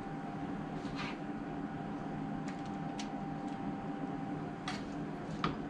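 A few light taps and scrapes of a silicone spoon against a foil-lined baking tray as meat filling is spooned into green pepper halves, over a steady background hum.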